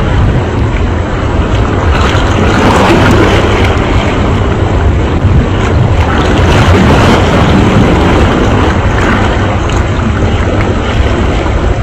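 Steady, loud wind buffeting the microphone over choppy sea water washing and splashing.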